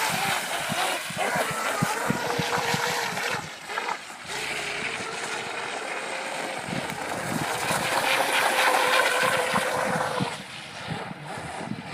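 Radio-controlled model speedboat running at speed, its small engine giving a high, steady whine that swells and fades as the boat passes back and forth, dropping away near the end.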